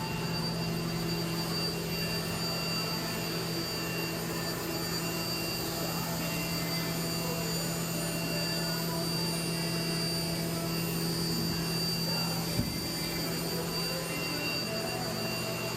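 Running CNC shop machinery: a steady low hum with a thin high whine over it. One sharp knock about twelve and a half seconds in, after which the low hum drops out. A lower hum sets in near the end.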